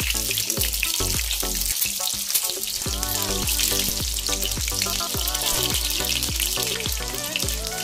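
Halved boiled eggs sizzling in hot mustard oil as more are laid into the pan, a steady frying hiss. Under it runs background music with a steady beat.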